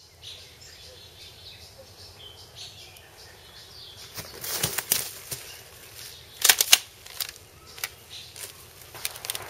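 Rustling and crunching of leaves and brush as a person moves through undergrowth. A cluster of sharp crackles comes about four and a half seconds in, the loudest about two seconds later, with faint bird chirps before them.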